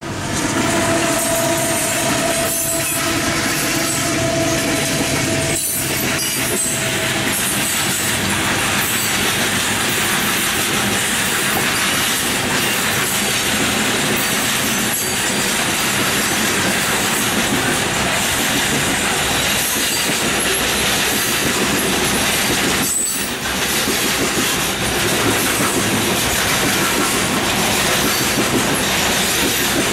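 Union Pacific coal train passing: the steady noise of the hopper cars' wheels running on the rails. For the first several seconds, while the locomotive goes by, a held high tone sounds over the noise.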